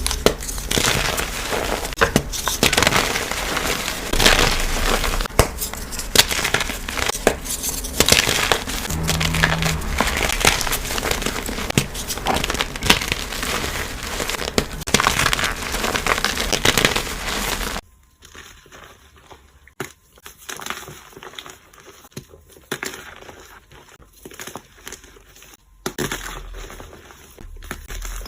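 Blocks of gym chalk and cornstarch being crushed, a dense run of crackling crunches and crumbles. Partway through, the crunching turns much quieter and sparser.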